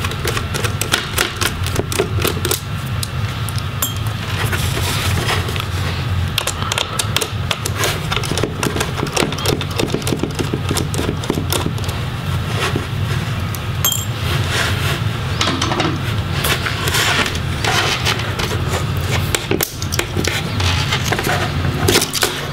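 Dense small clicks, taps and scrapes of a screwdriver on the hinge screws and of the plastic-and-metal palm rest being lifted free of a Dell Latitude 5580's display assembly, over a steady low hum.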